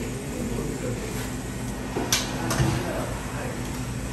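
Two sharp metallic clinks about half a second apart near the middle: a metal ladle striking a metal pot or serving bowl while ful is dished up. Under them is a steady hum with a murmur of voices.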